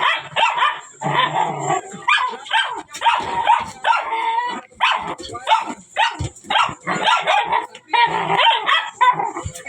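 Dogs barking in a rapid string of short, high calls, the excited noise of dogs at play greeting their owner.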